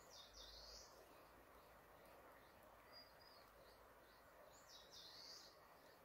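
Faint songbird song in forest: two similar high song phrases, one near the start and one about five seconds in, with a short note between them. Beneath them runs a steady rush of river water.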